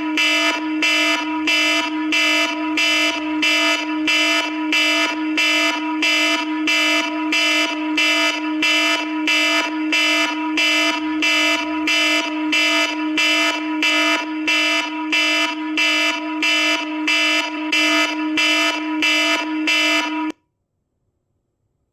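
iPhone alarm tone ringing in a steady pulsing pattern, about two pulses a second, then cutting off suddenly near the end.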